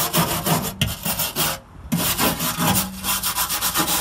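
Hand wire brush scrubbing back and forth over a Chevrolet Caprice's rusty floor pan, about four or five quick strokes a second, knocking loose surface rust. The scrubbing pauses briefly about a second and a half in.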